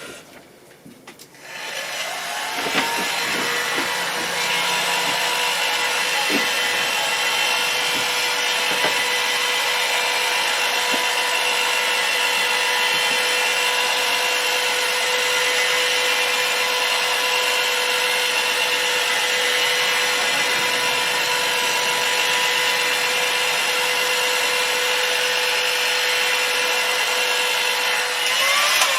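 Heat gun running: its fan whine rises as it is switched on, then holds a steady hum with rushing air while it heats the phone's display adhesive, and falls away as it is switched off near the end.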